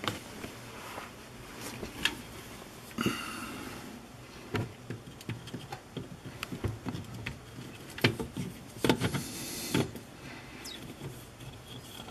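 Irregular clicks, knocks and scrapes of a plastic pop-up drain body being handled and threaded up into the sink's drain flange from underneath, with a cluster of louder knocks near the end.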